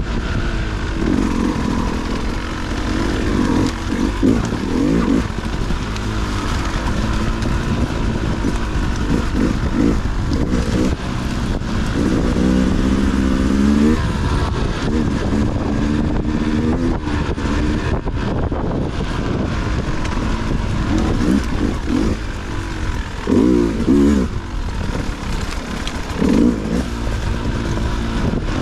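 Dirt bike engine revving up and down over and over as the throttle is worked on and off, with short rising bursts of revs, over a steady low rumble.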